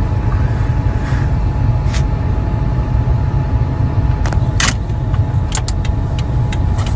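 Car cabin noise from a slowly moving car: a steady low engine and road rumble, with a faint steady whine above it. Several short clicks or ticks come through in the second half.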